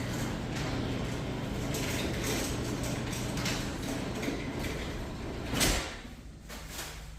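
A large door being pulled shut, running steadily with a rattling rumble and closing with a bump about five and a half seconds in, after which the sound drops away.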